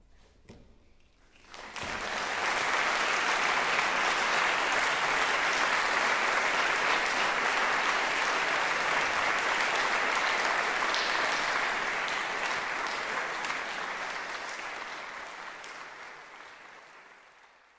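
Audience applauding: the clapping breaks out suddenly about two seconds in, holds steady, then gradually fades away near the end.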